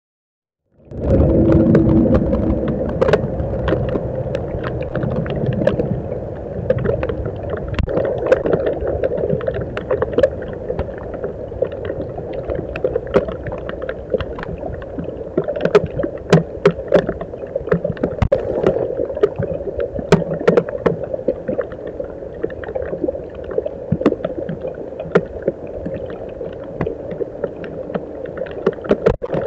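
Rain falling on a trail camera: many irregular sharp taps of drops over a steady hum.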